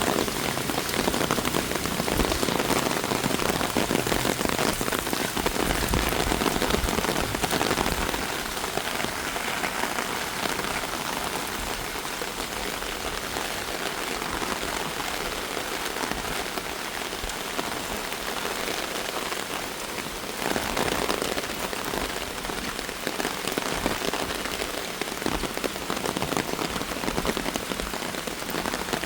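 Steady rain falling on the street, a little louder for the first several seconds and then even.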